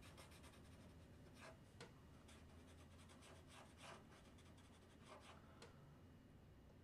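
Faint scratching of a Sharpie permanent marker on paper in short, irregular strokes, colouring in drawn wheels solid black.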